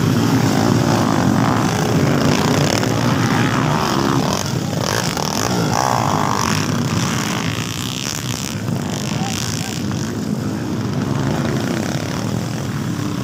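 Several dirt bike engines buzzing and revving as the motorcycles ride past close by one after another, with crowd voices mixed in.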